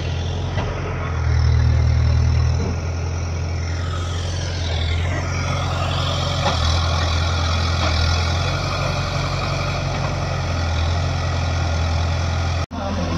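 Heavy diesel engine running under varying load, swelling louder about a second in and again several times after. A whine glides down and back up about four to five seconds in. The sound drops out for an instant near the end.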